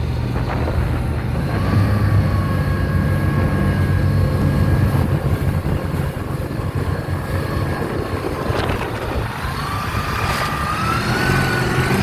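Steady road and engine noise inside a car at about 80 mph, with a thin high-pitched whine over it that wavers and rises in pitch near the end. The whine is a living creature ('her') rather than the car.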